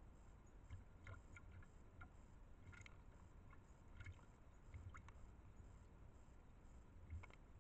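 Near silence broken by faint, irregular ticks and light water splashes, one every second or so.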